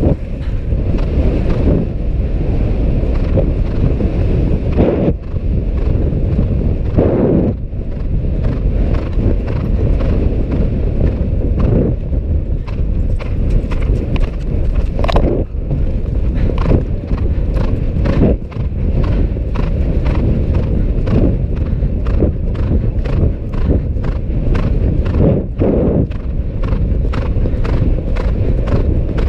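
A horse galloping on grass, its hoofbeats striking in a running rhythm under a steady loud rush of wind over the microphone.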